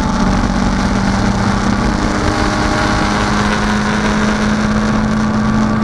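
Datsun 510 race car engine running hard and steadily, heard from inside the stripped cockpit along with wind and road noise. The engine note holds nearly level, rising slightly in the second half.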